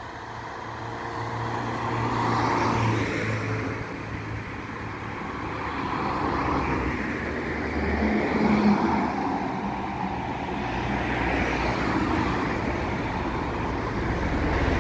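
Road traffic: several cars going by one after another, each swelling and fading over a steady low rumble of traffic noise.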